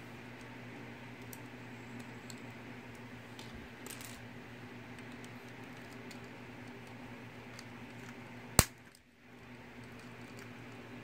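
Plastic Mega Bloks pieces handled and pressed together, giving scattered faint clicks, with one sharp, loud click a little over eight seconds in. A steady low hum runs underneath.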